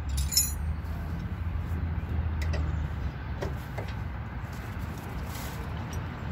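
Brief metallic jingle of loose tools or hardware about half a second in, then a few faint clicks, over a steady low rumble.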